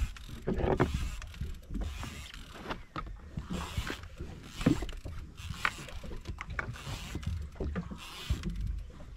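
Irregular clicks and knocks from a conventional jigging reel and rod being worked on a small open fishing boat, over a steady low rumble of wind and water.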